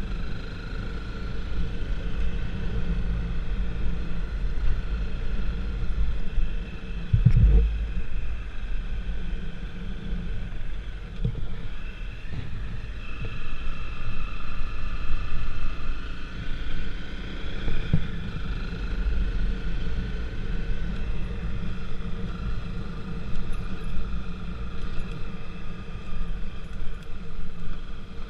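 A vehicle on the move: a steady low rumble of ride noise, with a whine whose pitch shifts a little, and a single thump about seven seconds in.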